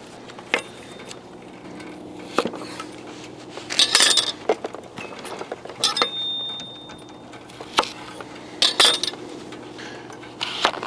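Kitchen utensils and dishes clinking and knocking at irregular intervals as ingredients are handled, with a faint steady hum underneath.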